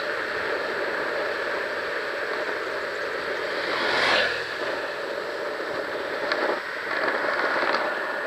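Longboard wheels rolling over asphalt, a steady rough hiss. A motorcycle passes close by about four seconds in, the loudest moment, swelling and then fading.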